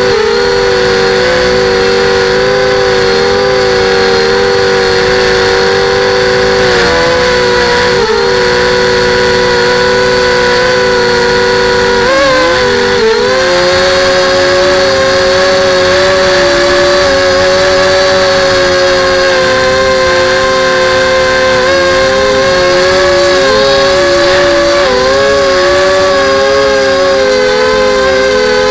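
FPV quadcopter's electric motors and propellers whirring, heard up close through the craft's onboard camera: a steady pitch made of two close tones, dipping and wavering briefly as the throttle changes about 7, 12 and 22–26 seconds in.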